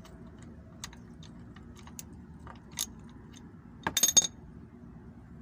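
Scattered light metallic clicks and clinks, with a quick cluster of sharp, loud clanks about four seconds in, over a low steady hum.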